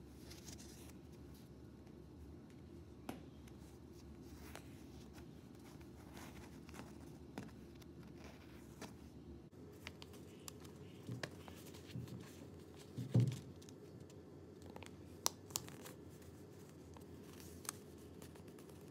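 A small sheet of origami paper being folded and creased by hand: soft rustles and scattered sharp crackles and taps, more of them in the second half and loudest a little past the middle, over a steady low hum.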